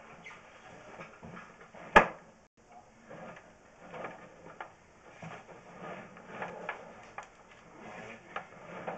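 Handling noise as a sewer inspection camera's push cable is drawn back through the drain: irregular scraping and clatter, with one sharp knock about two seconds in.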